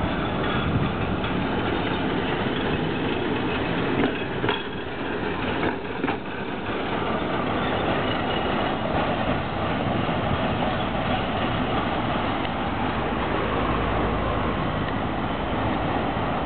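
Tram rolling along street tracks, its wheels running on the rails, with a few sharp clicks about four to six seconds in, over the steady noise of passing cars.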